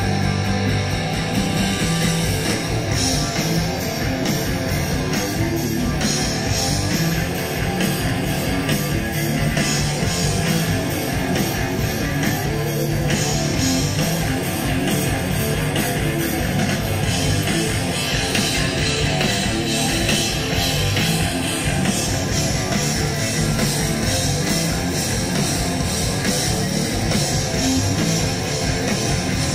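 A rock band playing loud and steady: electric guitar, bass and a drum kit, heard in an audience recording of a live show.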